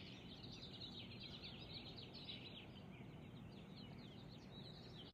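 Faint outdoor ambience of many small birds chirping at once, short falling chirps overlapping throughout, over a low steady rumble.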